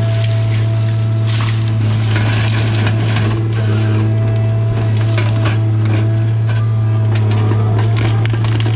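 Tigercat 855C harvester's diesel engine running steadily with a deep drone, heard from the cab, under repeated cracking and snapping of hardwood stems and branches as the LogMax 7000 harvester head grips and handles them.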